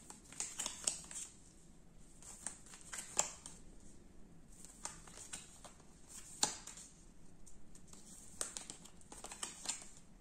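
Fortune-telling cards being handled: quiet, irregular light snaps and clicks of card stock, with sharper snaps about three seconds in and just past six seconds.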